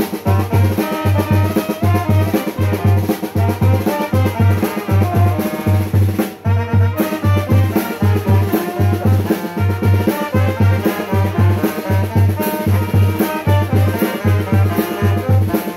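A live street band of trumpets, saxophones, snare drum, bass drum and hand cymbals playing a lively tune. The bass drum beats about twice a second, and there is a brief break about six seconds in.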